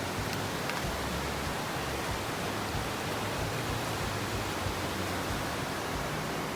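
Steady rushing noise of the Azat River flowing through the gorge, even and unbroken.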